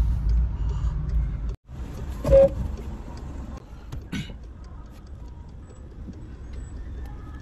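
Engine and road rumble inside a moving car's cabin, cut off abruptly about a second and a half in. Then quieter cabin hum with a brief, sharp loud sound a second later and a smaller click near the middle.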